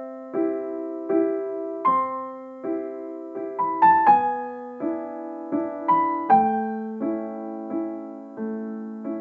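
Gentle keyboard music: soft piano-like chords struck about once every 0.7 seconds, each ringing and fading, with a short run of quicker notes about halfway through.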